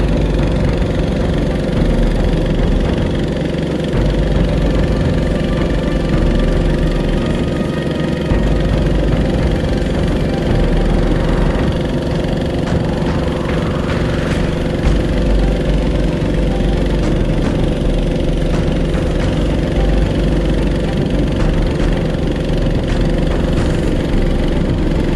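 A boat's engine running steadily at a constant speed.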